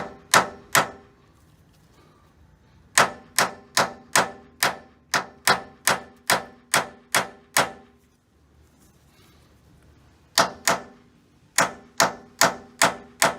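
Stubby hammer striking a steel punch to drive a stuck metal liner out of a Jeep Wrangler JK door hinge. Sharp, ringing metal-on-metal blows come about two or three a second, in three runs with short pauses between.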